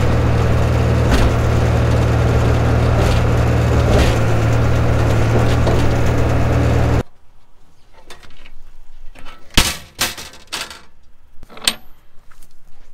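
1968 Atlas excavator's engine running steadily and loud, cutting off abruptly about seven seconds in. Then come a few sharp clicks and knocks of the steel cab door and its latch being handled.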